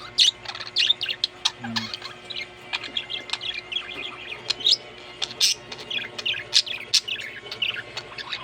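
Budgerigars chirping and chattering in quick, irregular short calls.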